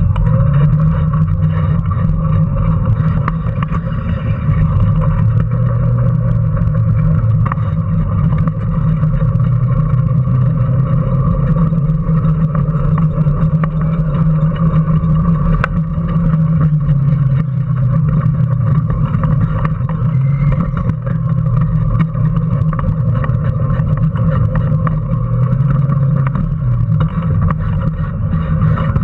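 Onboard sound of a Power Racing Series car, a modified ride-on toy car with an electric drive motor, running at speed: a steady low hum whose pitch wavers slightly, under constant rattling.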